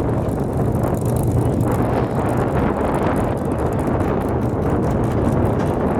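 Formula offroad race car's engine running steadily, with a low hum and wind buffeting the microphone.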